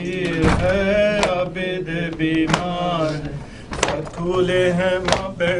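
Male voices chanting a noha, a Shia lament for Muharram, in a slow melodic line. The chant is marked by sharp strikes about every one and a quarter seconds, the beat of matam chest-beating.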